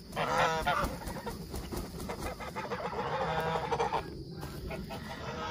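Domestic geese (Toulouse and Chinese) honking: a loud run of calls right at the start and more calls around the middle.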